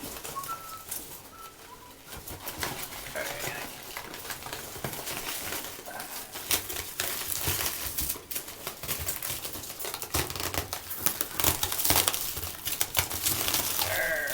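Crinkling and rustling of packing wrap as a tightly packed orchid is worked out of its shipping box, a dense run of crackles that gets louder toward the end.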